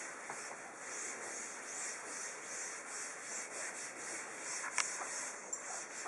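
Damp cloth rag rubbed back and forth over polyurethane-sealed silk on a sheet of glass, a steady swishing in repeated strokes, wetting the surface so the silk will peel off the glass. A single sharp click about five seconds in.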